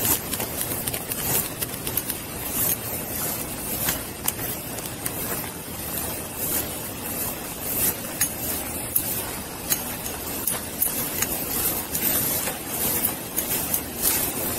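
Body-worn camera rubbing against the wearer's clothing and gear as he walks: a steady rustling hiss broken by frequent irregular footfalls and small knocks.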